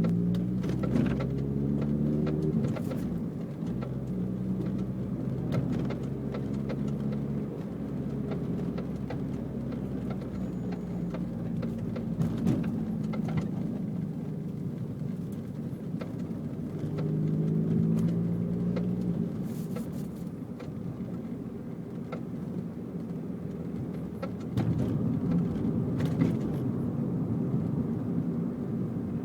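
Renault Lutecia (Clio III) on the move, its engine note stepping up and down, with scattered short knocks through the car. The knocks are an abnormal noise that the owner suspects comes from the suspension.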